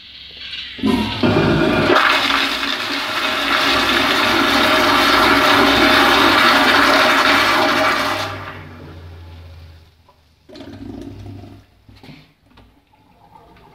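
Vintage 1970s Kohler floor-mount toilet flushing through its flushometer valve: a loud rush of water starts about a second in, lasts about seven seconds and cuts off fairly sharply. A few fainter splashes and gurgles follow near the end.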